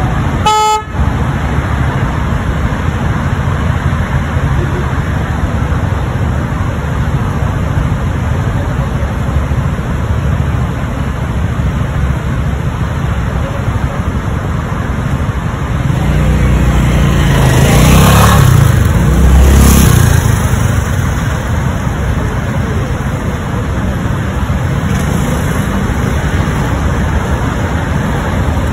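Steady city road traffic rumble, with a short car horn toot about half a second in. About two-thirds of the way through, a louder vehicle passes close, swelling up and then fading away.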